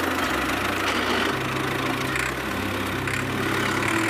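Steady engine-like running sound mixed with background music whose low bass notes change about once a second.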